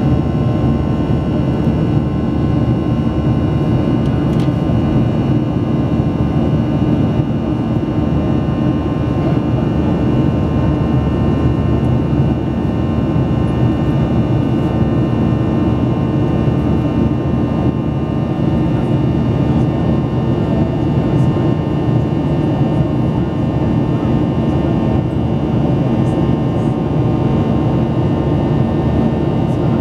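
Steady drone of a Boeing 737-800's CFM56-7B jet engines at climb power heard inside the cabin: a dense low rumble and airflow rush with several fixed whining tones above it.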